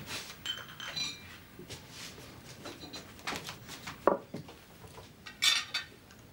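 Tableware at a meal: wine glasses, cutlery and plates clinking and knocking, with a louder knock about four seconds in and a bright glass clink about a second later.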